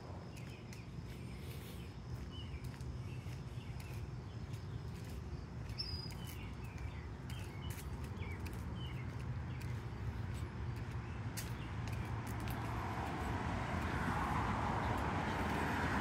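Outdoor trail ambience with small birds chirping and a steady low rumble. In the last few seconds a rushing noise grows louder, typical of a car driving by on the road beside the trail.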